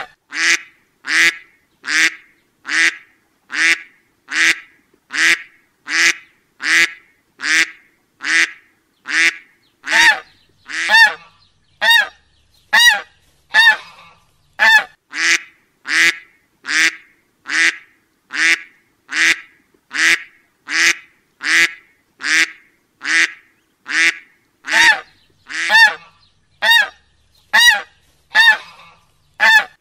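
Duck quack sound effect looped: one short, nasal honking call repeated at an even pace, about one call every 0.8 seconds, each the same as the last.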